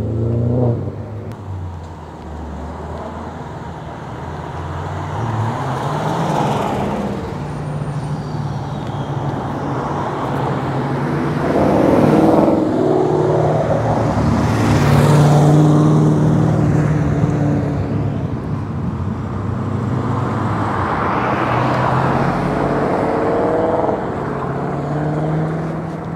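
Several cars driving off and passing one after another, each engine swelling, accelerating past and fading, loudest about halfway through.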